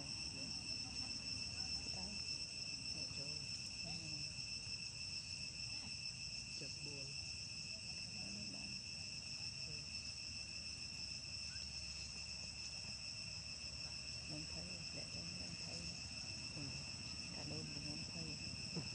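Insects calling in a continuous high, even drone, with faint scattered low sounds underneath.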